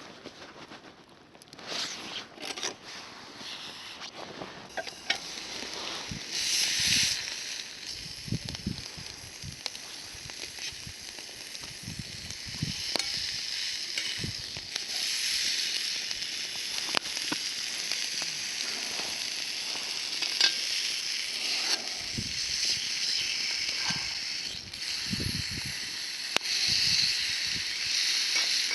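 Meat frying over a campfire: a steady sizzling hiss that swells about six seconds in, with scattered crackles and light knocks.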